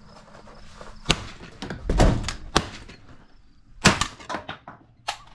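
A series of sharp knocks and thuds from a camper trailer: footsteps and its door as someone moves through the doorway with a shotgun. There are about five of them over a few seconds, the loudest a little before four seconds in.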